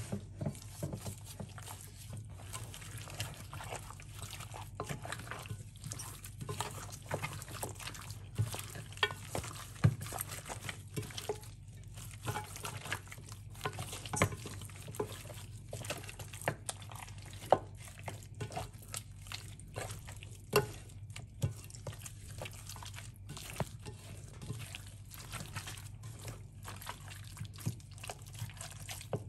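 Raw goat meat being worked by hand with spice paste and oil in a glass dish: irregular wet squishing and small clicks of meat and bone against the glass, with no steady rhythm.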